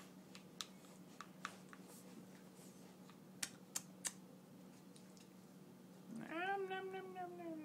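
A few faint sharp clicks while a baby is spoon-fed, then about six seconds in a drawn-out baby vocalization, one long wordless note that holds and then falls in pitch.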